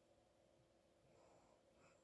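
Near silence: a steady faint hum, with a soft breath from a sleeping person about a second in.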